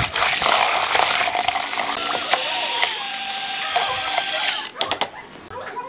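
Electric drill with a paddle mixer running, stirring thin cement slurry in a plastic bucket. The motor runs steadily and stops about four and a half seconds in.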